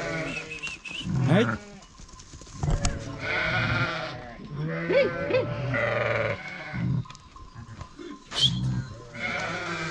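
A flock of sheep bleating, many wavering calls overlapping and following one another.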